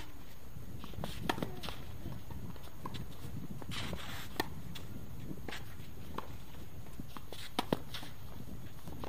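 Tennis rally: sharp pops of racket strings striking the ball and of the ball bouncing, with tennis shoes scuffing on the court between shots. The loudest hits come about a second in, just past four seconds, and as a quick pair near the end.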